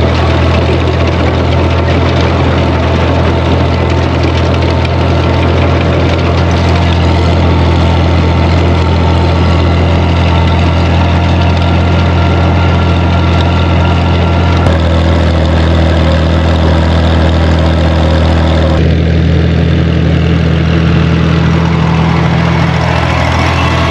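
Tractor engine running steadily at an even speed. Its tone shifts abruptly twice in the second half.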